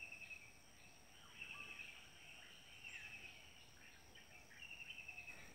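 Faint outdoor background of small animals chirping: short trilled chirps repeating every second or so, over a steady high-pitched whine.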